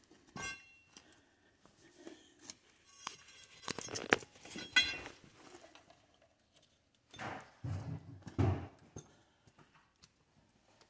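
Scattered clicks, scrapes and light clinks of handling while working under a tractor, with two heavier rubbing bumps about two-thirds of the way through.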